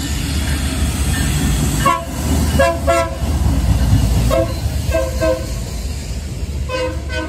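Union Pacific SD59MX diesel locomotives passing over a steady low engine and rail rumble. The lead unit's horn sounds a string of short chord blasts, ending with a longer one near the end.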